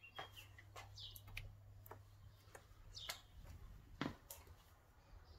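Near silence: faint room tone with a low hum, scattered light clicks and a few brief high chirps that fall in pitch.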